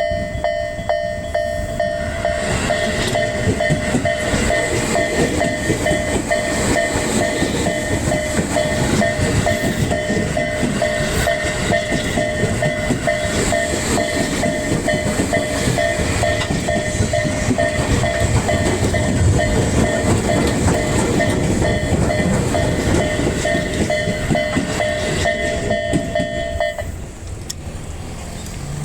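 Level-crossing warning bells ringing in a steady repeated electronic ding while a Tobu Tojo Line train passes close by at low speed; the bells stop a couple of seconds before the end, and the train noise dies down with them.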